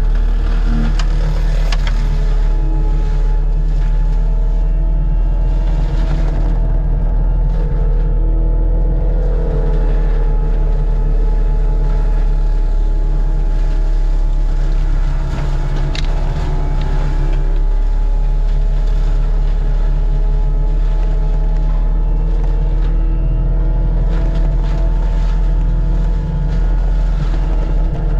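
Diesel engine of a forestry mulching machine running steadily with a deep drone, and a higher whining tone that wavers about nine seconds in.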